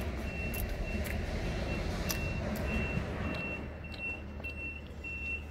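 A vehicle's reversing alarm beeping steadily, a little over two short high beeps a second, over a low engine rumble.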